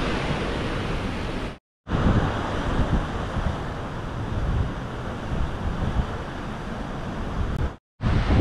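Wind buffeting the microphone over a steady rush of sea water, from a cruise ship under way. The sound drops out to silence twice, briefly: about a second and a half in and again near the end.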